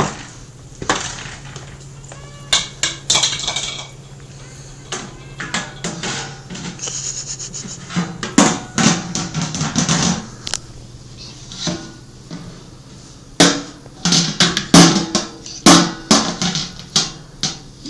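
A plastic colander banged against a folding chair by a toddler: irregular knocks and rattles in clusters, loudest in the last few seconds.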